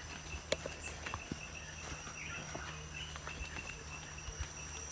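Forest insects calling: a steady high buzz and a faster pulsing chirp a little lower. A few sharp clicks come over them, the loudest about half a second in.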